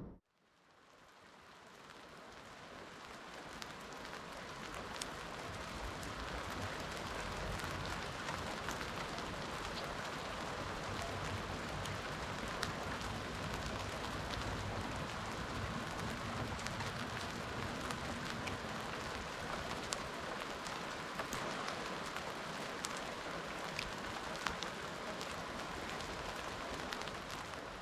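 Steady rain falling, with scattered sharper drop taps. It fades in over the first several seconds and fades out near the end.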